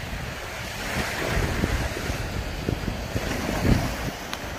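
Surf breaking on the shore with wind buffeting the microphone in low rumbling gusts, the strongest a little past halfway.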